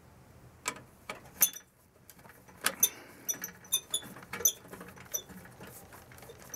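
Irregular sharp clicks and light metallic ticks as wire connectors are handled and pushed onto the terminals of a furnace control board, the loudest click about a second and a half in.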